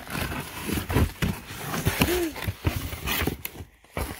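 Cardboard box and packing paper being handled and rustled as the box is unpacked, with irregular knocks and a few low thumps; a brief murmur from a voice about two seconds in.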